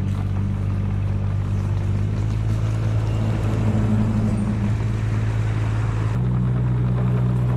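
Mini excavator engine running steadily, its pitch stepping up slightly about six seconds in as the engine speed rises.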